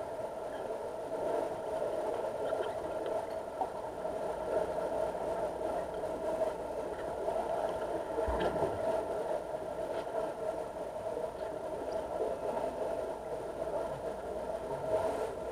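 Steady mechanical hum heard underwater in a diving pool, picked up by a submerged camera, with a single brief knock about eight seconds in.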